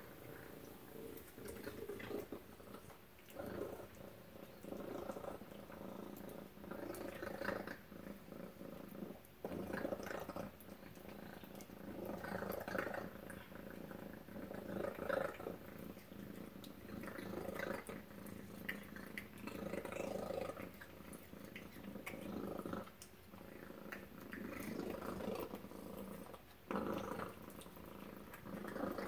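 Domestic tabby cat purring while it eats wet food from a metal bowl. The purr rises and falls every second or two, with small wet chewing and licking clicks over it.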